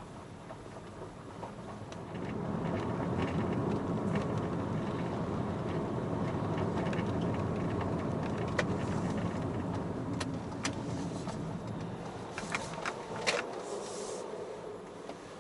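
Steady rumble of a road vehicle that swells about two seconds in and eases off near the end, with a few sharp clicks near the end.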